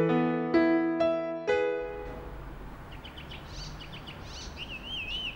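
Slow electric piano notes ringing out and ending about two seconds in, followed by outdoor ambience with birds chirping and a wavering whistled bird call near the end.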